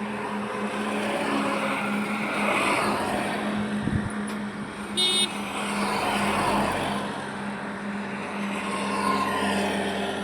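Steady highway road traffic, with vehicles passing one after another and a constant low engine hum under the tyre noise. About five seconds in a short, high horn beep sounds.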